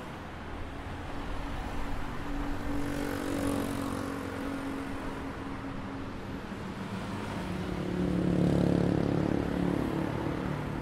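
Road traffic: a steady hum of cars, with passing vehicles swelling louder twice, most of all near the end.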